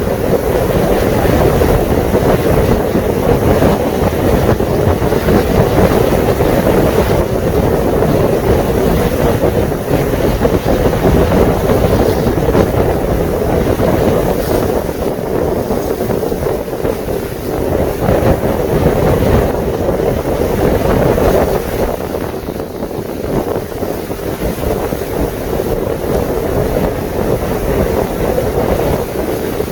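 Steady wind rushing over the microphone aboard a moving boat on a lake, with a low rumble of engine and water underneath.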